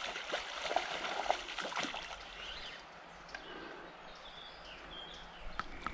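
River water trickling and flowing, with several short splashes in the first two seconds from a hooked brown trout thrashing at the surface. A bird chirps briefly around the middle.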